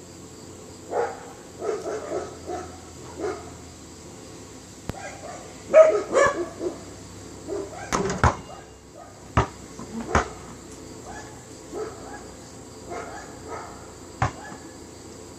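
A dog barking in short runs of barks, with several sharp thuds of a basketball bouncing or hitting the backboard or rim.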